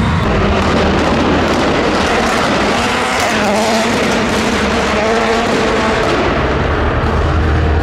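Car engine running loud and revving up and down as the car drives off.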